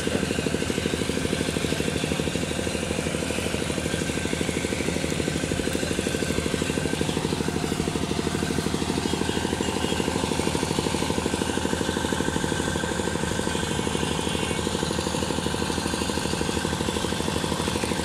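A small engine running steadily at a constant speed, a low hum with a fast, even beat.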